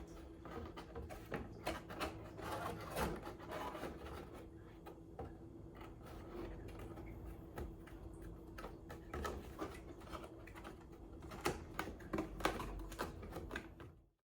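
Irregular light taps, clicks and rustles of cardboard being handled, over a steady low hum; it stops abruptly near the end.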